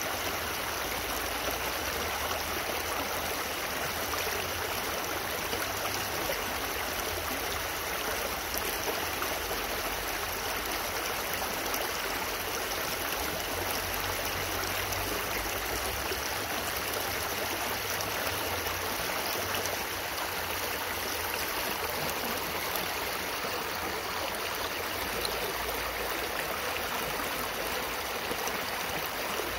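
A shallow, rocky creek flowing over and between stones, giving a steady, unbroken rushing and burbling of water.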